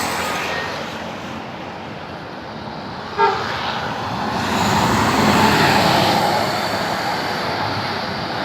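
Road traffic with a single short horn toot about three seconds in, followed by a vehicle's engine passing, loudest a little after the middle.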